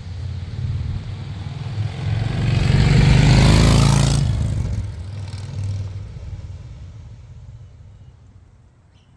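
A motor vehicle's engine passing by: it grows louder to a peak about three seconds in, then fades away over the next few seconds.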